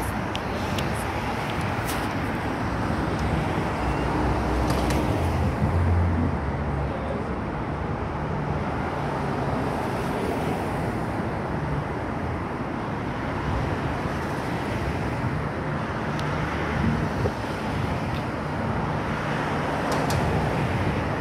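City street traffic: a steady wash of road noise from cars and vans driving past, swelling and fading every few seconds as vehicles go by.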